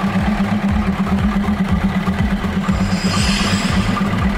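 Diesel railcar engine running steadily with a low, even hum, and a brief higher sound about three seconds in.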